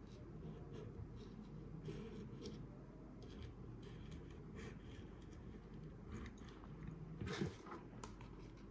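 Faint handling noises of small parts being worked by hand: scattered light clicks and rubbing, with one louder scrape about seven and a half seconds in, over a steady low room hum.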